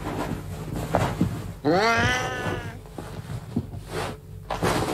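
Cat meowing once about two seconds in: one long meow that rises in pitch and then levels off.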